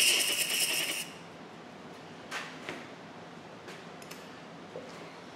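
Aerosol cleaner sprayed through its straw into a reamed valve guide bore of a Model T Ford engine block to flush out cutting oil: a loud hiss that stops about a second in. A few faint clicks and taps of handling follow.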